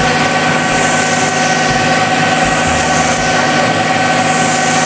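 A motor running steadily with a constant hum and hiss.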